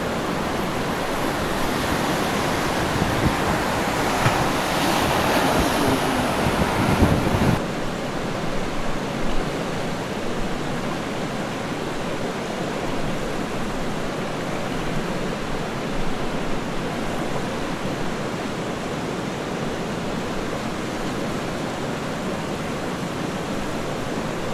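Swift river current rushing around a drifting boat in a steady noisy wash. For the first several seconds wind buffets the microphone with a low rumble, which cuts out suddenly about seven seconds in.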